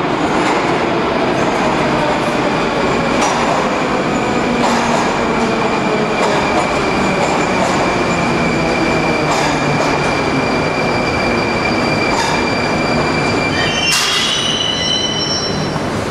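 Moscow Metro train pulling into the station and braking to a stop: a steady wheel rumble with a slowly falling motor whine, a long high steady brake squeal, and a short burst of hiss with high squeals about 14 seconds in as it halts.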